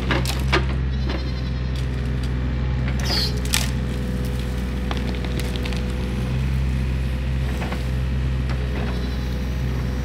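Excavator's diesel engine running steadily, with a few sharp cracks of wood breaking and a goat bleating briefly about three seconds in.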